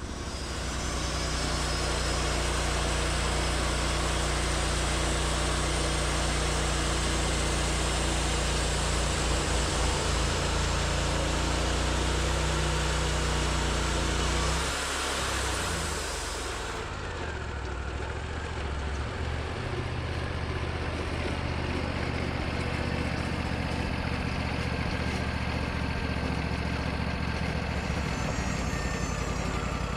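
Sawmill engine running steadily; about halfway through the sound shifts and the upper hiss drops away as the engine's speed and load change during the pass.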